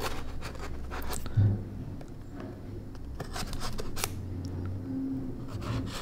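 Spyderco Para 3 Lightweight folding knife blade slicing along the taped seam of a cardboard mailing box: a run of short scratchy scrapes and ticks as the blade cuts through tape and card, with one louder knock about a second and a half in.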